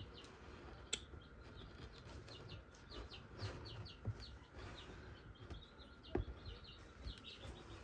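Faint, quick chirping of small birds, many short falling peeps a second. There is a sharp click about a second in and a soft knock about six seconds in.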